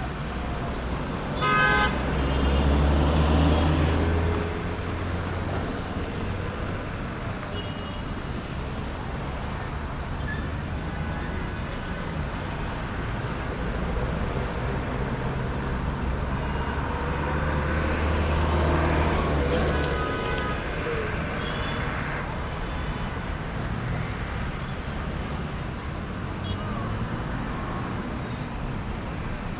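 City street traffic: a steady wash of road noise from passing cars, with a short car-horn toot about two seconds in. Heavier vehicles rumble past twice, once early and again in the middle.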